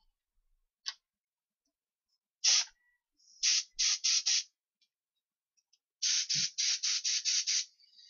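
Games Workshop spray gun spraying black primer in short hissing bursts: a brief puff about a second in, another at two and a half seconds, a quick run of four a second later, then a fast string of about seven bursts near the end.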